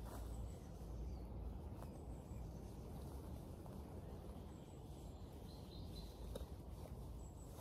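Quiet woodland ambience: a steady low rumble with faint, scattered bird chirps, a short run of higher calls about six seconds in. A few soft clicks and rustles come from hands working in soil and dead leaves.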